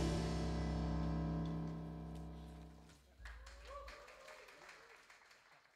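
A jazz septet's last sustained chord ringing out and fading away over about three seconds, with deep bass under the horns. After it come only faint small clicks and a brief faint voice-like sound.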